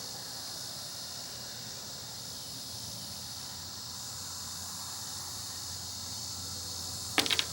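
Steady chorus of crickets and other insects chirring. About seven seconds in, a quick rattle of a few sharp clicks cuts in briefly.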